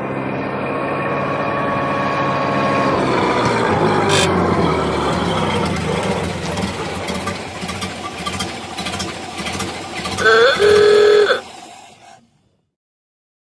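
Car engine running, its pitch falling a few seconds in as it drives off, then a horn sounding twice about ten seconds in, the second blast longer.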